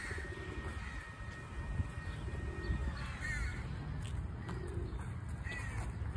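Waterside birds giving short calls a few times, over a steady low rumble.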